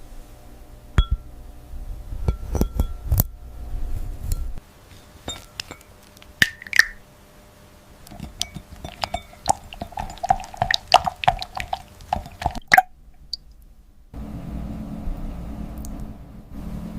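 Glass clinking and tinkling. There are a handful of sharp separate clinks at first, then a quicker run of clinks with a light ringing in the middle. A steady low hum takes over in the last few seconds.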